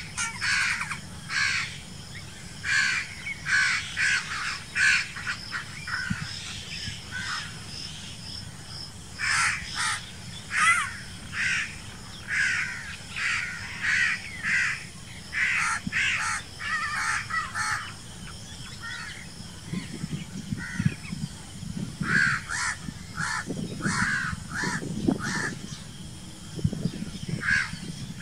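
House crow cawing over and over in quick runs of short, harsh calls, thinning out for a few seconds about a third of the way through and again around two-thirds in.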